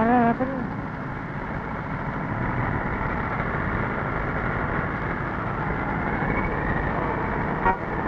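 A car horn sounds briefly with a wavering pitch, then steady street noise of traffic continues.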